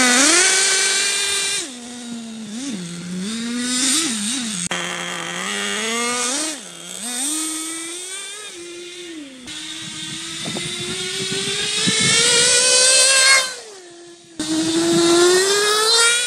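Water-cooled nitro glow engine of a radio-controlled snowmobile revving up and down as it is driven, the pitch rising and falling with the throttle. Near the end it holds one long climbing rev, drops away briefly, then comes back high.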